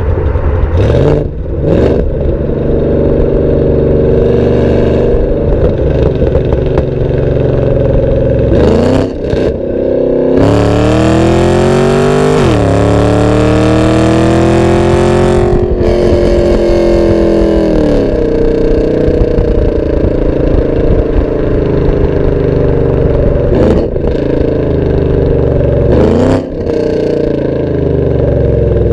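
Exhaust of a 2013 Camaro ZL1's supercharged 6.2-litre V8, heard at the tailpipes while driving: revving up and dropping at several gear changes, with one long hard pull through two gears in the middle, then steady cruising with a couple more shifts near the end.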